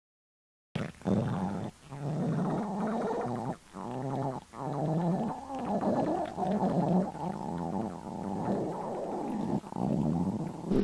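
A hungry person's stomach growling: long, low gurgling rumbles that waver up and down in pitch, starting about a second in and going on in several stretches with short breaks between them.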